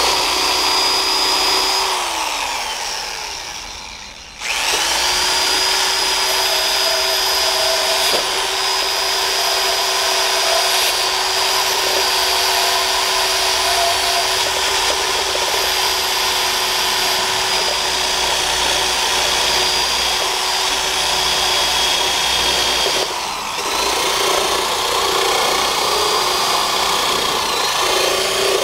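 High-speed rotary tool with a small wire wheel brush, whining steadily as it scrubs rust off an old jigsaw's steel base plate. It winds down about two seconds in, starts again about two seconds later, and then runs on steadily.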